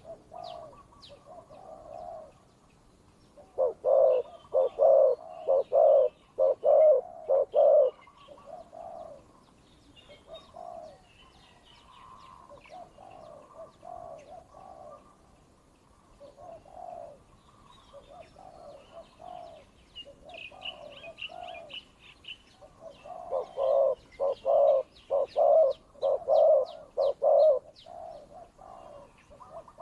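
Spotted doves cooing back and forth in a territorial contest between a tethered decoy and a wild dove. Softer coos run throughout, broken twice by loud rapid series of coos at about two notes a second, near the start and again near the end. Faint high chirps from small birds sound between the coos.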